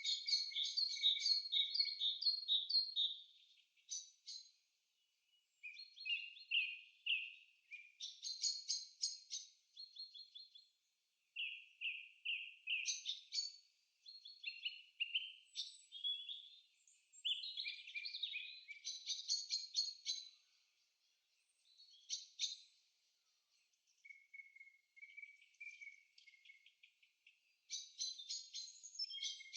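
Birds singing: bouts of quick, varied, high-pitched chirps and trills, one phrase after another with short pauses between them.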